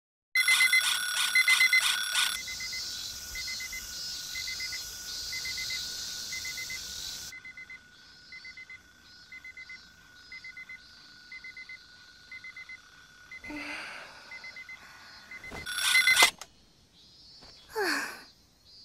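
Electronic alarm clock beeping in rapid, evenly repeating clusters, loud at first and then settling into about one cluster a second, with a second loud burst near the end. A short falling vocal sound, like a sleepy girl's voice, comes just before the end.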